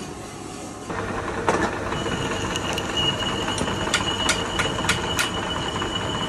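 Metal lathe running while a threading insert cuts a thread on a bolt held in the chuck. It gets louder about a second in, a steady high whine sets in, and a run of sharp ticks comes near the middle.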